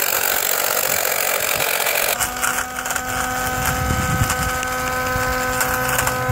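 Portable 12-volt tyre-inflator air compressor running, first as a noisy haze. About two seconds in, at a cut, it changes to a steady pitched hum. The hum is the motor running without pushing any air, which the owner takes as a sign that something is wrong with it.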